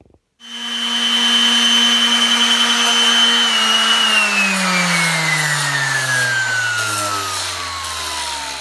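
Dremel rotary tool with a sanding disc running with a steady whine while sanding the cut edge of PVC pipe. About three and a half seconds in its pitch starts to fall steadily as the motor slows.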